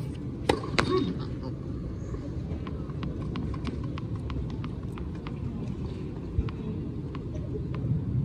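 A tennis racket strikes the ball on a serve about half a second in, with a second sharp hit just after. Then a tennis ball is bounced repeatedly on the hard court, light clicks about three a second, over a low crowd murmur.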